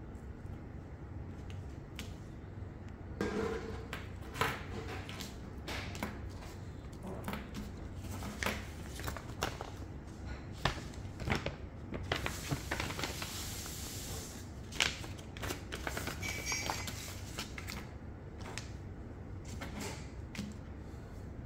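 Small parts of a solar car kit being handled and fitted together: an irregular run of light clicks and taps, with a brief rustle around the middle, over a steady low hum.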